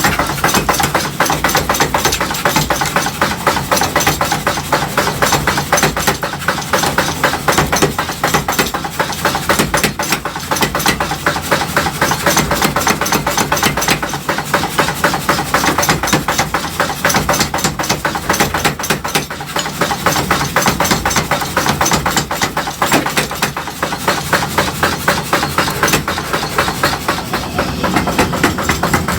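Metal being hammered in a fast, even run of blows that keeps going without a break, typical of forging tongs from steel.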